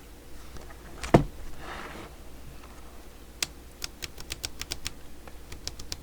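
A single knock about a second in, then from about three seconds in a quick run of sharp clicks, several a second: the Cobra 148GTL CB radio's panel switches being worked back and forth to spread freshly sprayed WD-40 through the contacts.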